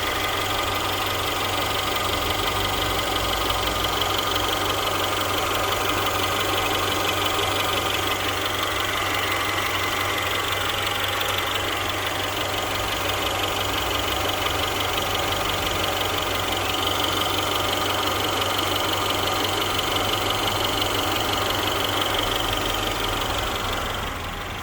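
Mercedes-Benz W176 A-Class engine idling with a steady high-pitched chirping, squeaking noise over the engine sound.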